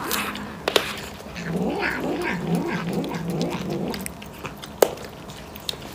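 A tabby cat vocalising with wavering, drawn-out growly yowls for a few seconds, starting about a second in. There are a couple of sharp clicks, one near the start and one near the end.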